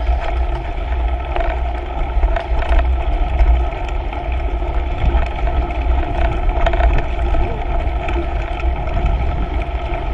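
Mountain bike rolling along a dirt and sandy trail: steady low wind rumble on the bike-mounted camera's microphone over tyre noise, with scattered clicks and rattles from the bike over bumps.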